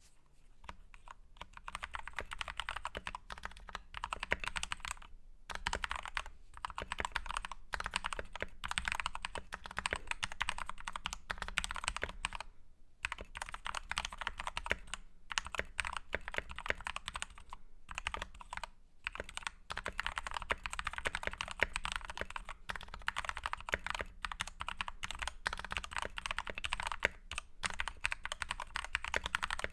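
Typing on a Novice68 mechanical keyboard fitted with lubed Gateron Black linear switches: a fast, continuous run of keystrokes, broken by a few short pauses.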